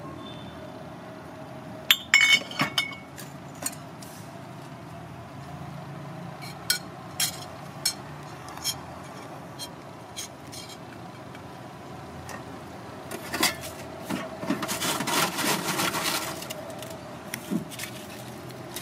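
A metal spoon clinking and scraping against a ceramic plate as noodles and sauce are mixed, with a cluster of sharp clinks about two seconds in. Near the end comes a couple of seconds of dense crackling as crackers are crushed by hand onto the plate.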